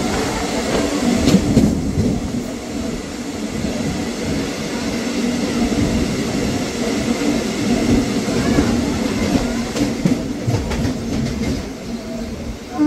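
Electric suburban local train running through a tunnel, heard from inside the coach: a steady noise of wheels on the rails with clusters of clicks over the rail joints. It gets a little quieter near the end as the train comes out of the tunnel.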